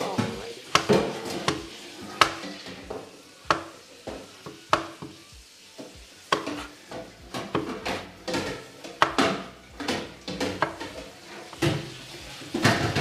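A chef's knife slicing a tomato on a wooden cutting board, the blade knocking the board in irregular cuts, sparse at first and quicker in the second half.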